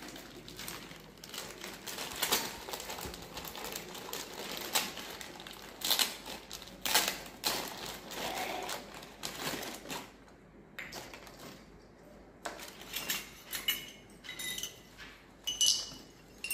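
Plastic wrapping crinkling and rustling as a miniature toy kitchen set is unwrapped by hand. Near the end, small steel toy dishes and plates clink against each other and the floor as they are set out.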